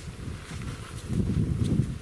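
Wind buffeting the microphone in gusts, a low rumbling that grows stronger about a second in.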